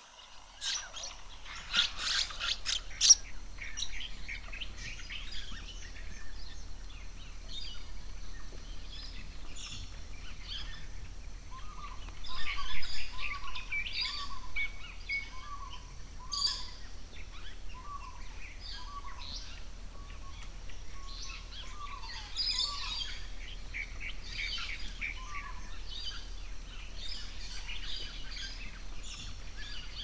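Mixed birds calling: a burst of sharp, high chirps in the first three seconds, then scattered song and calls, with a short low note repeated about once a second from about twelve seconds in. A steady low hum lies under it all.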